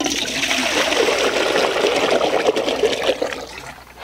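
Water poured from a plastic pot into a metal cooking pot: a steady splashing pour that starts abruptly and tapers off in the last second.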